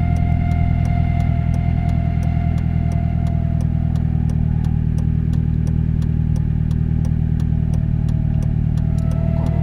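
Road vehicle running steadily while driving, with an even whine and a regular light ticking at about three ticks a second: the abnormal noise the test drive is meant to check.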